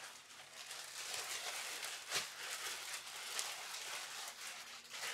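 Clear plastic packaging bag rustling and crinkling as it is handled, with one sharper crackle about two seconds in.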